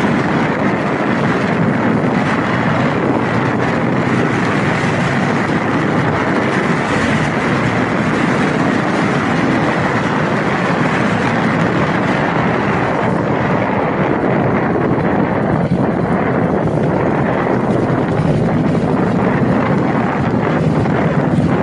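Honda Rebel motorcycle running steadily on the road, its engine note mixed with wind rush over the microphone.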